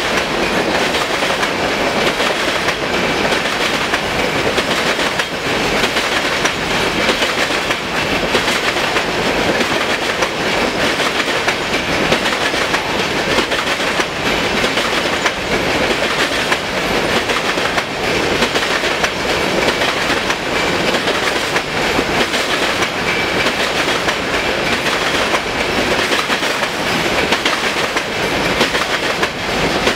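Empty covered hopper cars of a grain train rolling past at close range: a steady, loud rumble and rattle of steel wheels on rail, with the clickety-clack of wheels crossing rail joints.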